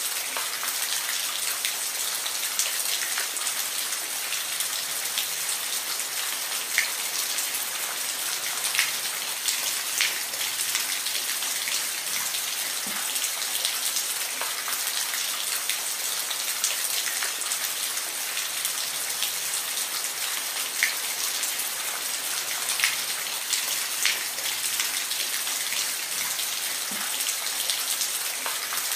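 Steady rain falling, an even hiss with scattered sharp drips and drops landing close by.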